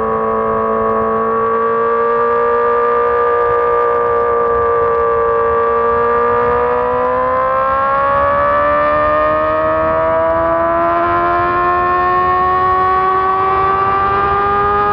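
2006 Honda CBR600RR's inline-four engine under way at high revs, a steady high-pitched howl held level for several seconds, then climbing slowly and steadily as the bike accelerates in a high gear.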